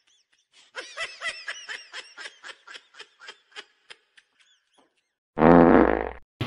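Edited-in laughter sound effect: a quick run of high-pitched 'ha-ha' syllables, about four a second, fading away. Near the end comes a short loud burst with a rising pitch.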